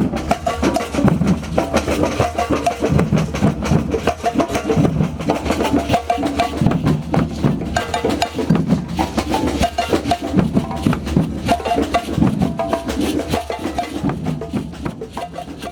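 Percussion music: drums played in a fast, dense, steady rhythm with sharp clicking strikes on top. It stops abruptly at the very end.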